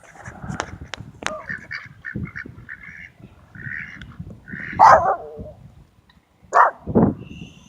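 Ducks on a park pond calling: a run of short, quick honking quacks, then a few louder calls in the second half.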